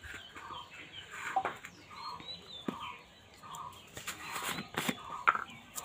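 A hen clucking over and over at a steady pace, with small birds chirping and a few sharp clicks.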